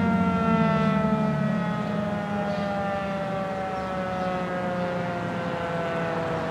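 Federal Thunderbolt 1000 mechanical siren winding down, its wail falling slowly and steadily in pitch and getting gradually quieter. A low hum underneath dies away about a second and a half in.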